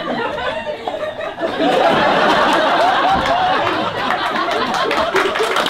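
Audience laughing, the laughter swelling about a second and a half in, with a few claps near the end.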